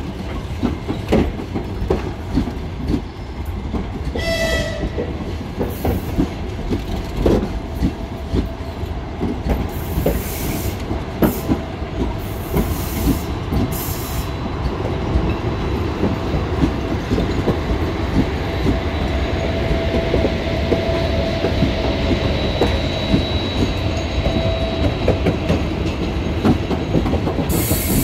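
Passenger coaches of a departing train rolling past, their wheels clacking steadily over rail joints. A short pitched toot sounds about four seconds in, and a thin wheel squeal rings through the second half.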